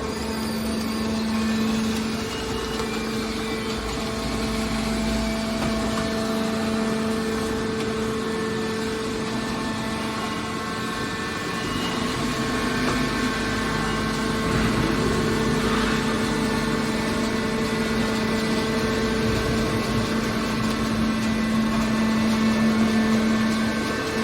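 Scrap car baler's hydraulic power unit running with a steady droning hum.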